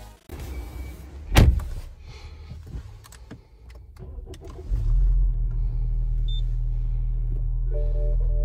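A BMW's engine starting and settling into a steady low idle, heard from inside the cabin, about halfway through. Before that there is a single loud thump.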